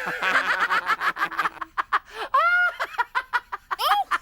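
High-pitched cartoonish voices giggling and chattering excitedly, then a few separate high squeals that rise and fall in the second half.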